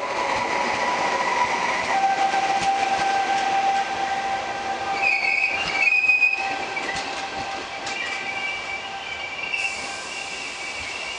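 Trenitalia regional passenger coaches rolling past close by. The running gear gives off a loud, high metallic squeal of several steady tones that shift in pitch partway through, with scattered clicks from the wheels over the rails.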